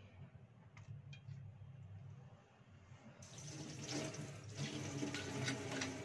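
Tap water running and splashing into a stainless-steel sink, starting about three seconds in, after a few light knocks.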